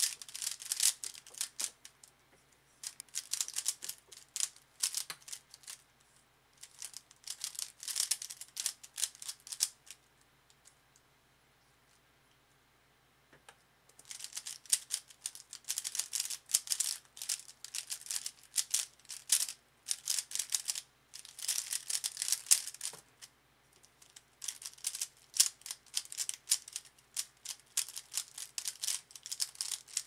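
DaYan ZhanChi 55mm 3x3 speedcube clicking rapidly as its layers are turned fast during timed speed solves. The turning comes in bursts of one to three seconds with short pauses between, and stops for a few seconds about ten seconds in before a new solve starts.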